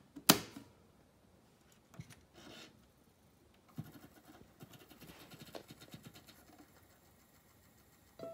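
Sony CFD-5 boombox's top-loading CD player: a loud, sharp click as the disc lid is shut, then a few softer button clicks and a faint whirring, scratchy noise as the disc spins up and is read. The first music notes begin right at the end.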